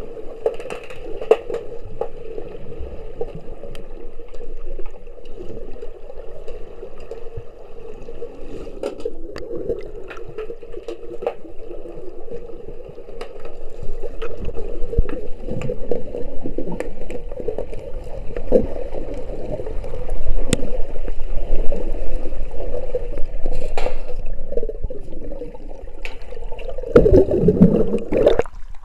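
Underwater pool ambience heard through an action camera's waterproof housing: a steady muffled hum with many sharp clicks and knocks scattered through it. Near the end comes a loud gurgling rush of water as the camera breaks the surface.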